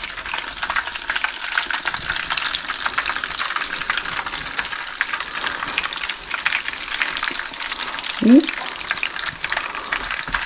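Breaded bluefish cakes shallow-frying in hot oil in a pan: a steady crackling sizzle while they are turned with a spatula. A short squeak comes a little over eight seconds in.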